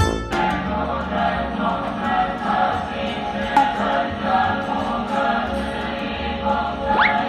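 Recorded Buddhist sutra chanting: massed voices chanting over a steady musical backing. A brief rising whistle sounds near the end.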